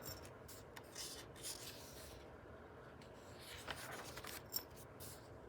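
Soft paper rustling as the pages of a book are handled and turned, two faint swishes with a few light ticks.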